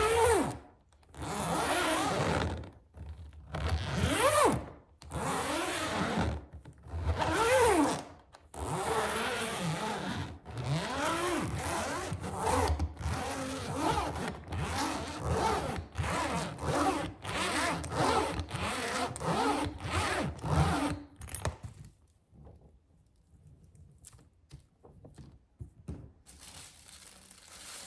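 A suitcase zipper being run back and forth in repeated strokes, first slow, then quicker at about two a second. After about 21 seconds it stops, leaving faint scattered ticks.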